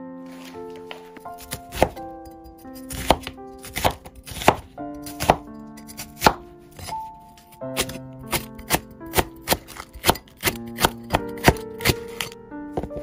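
A cleaver-style kitchen knife slicing through onion and green onion onto a wooden cutting board: a run of sharp chops, spaced out at first and quicker, about three a second, from about eight seconds in.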